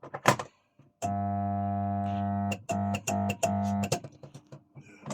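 Jammed electric sump pump motor humming loudly without running: a steady buzz for about a second and a half, then three short bursts as it is switched on and off, after a couple of clicks. The hum is the sign of a stuck, seized pump, with something jammed inside it.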